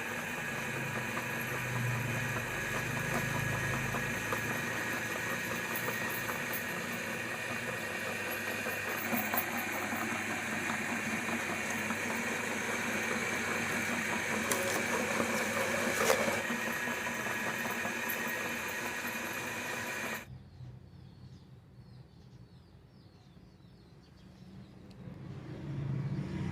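Meat grinder running steadily as it grinds chillies, a motor hum with a steady whine. It cuts off suddenly about twenty seconds in, leaving a much quieter background.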